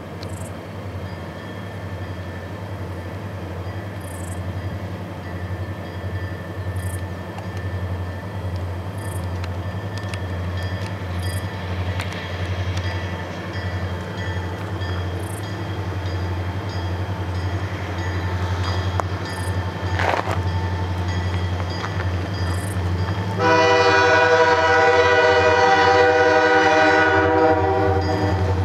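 Diesel locomotive of an approaching CN ore train: a steady low rumble that slowly grows louder, then about 23 seconds in the locomotive's air horn sounds one long chord of several notes lasting about five seconds.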